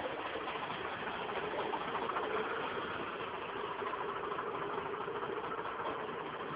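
Fire truck's engine running steadily.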